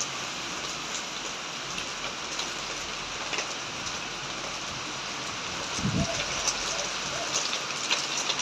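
Heavy rain pouring onto trees and a nearby surface: a steady hiss with scattered sharp drop taps. A brief low thump sounds about six seconds in.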